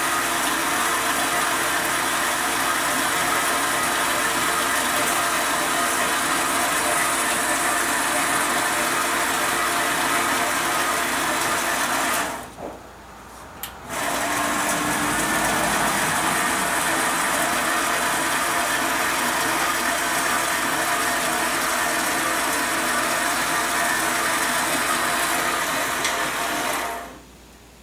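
Wen 5-inch metal-cutting band saw running steadily as its blade cuts through metal bar stock. The sound cuts out briefly about halfway through, resumes, and stops shortly before the end.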